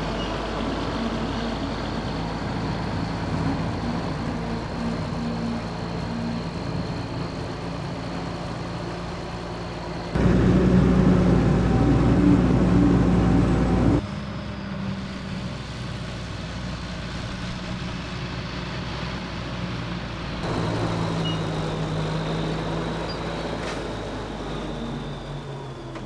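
Schlüter Profi Trac 3500 TVL tractor's 11.5-litre MAN diesel engine working under load, pulling a five-furrow plough, with a steady high whine over the engine note in parts. The sound jumps in level at cuts and is loudest for about four seconds near the middle.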